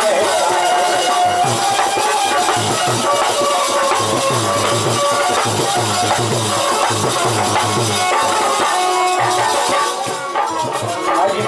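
Instrumental passage of Bundeli folk (rai) music: a harmonium holding melody notes over a steady drum beat, with jingling shaker-like percussion throughout.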